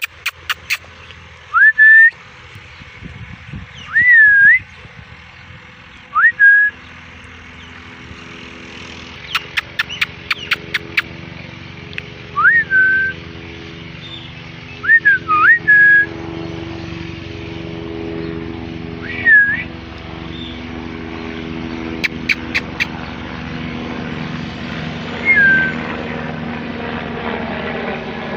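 A parrot giving short whistled calls, about eight of them a few seconds apart, each rising sharply then levelling off or wavering. Quick runs of sharp clicks come three times, and a steady hum grows slowly louder underneath.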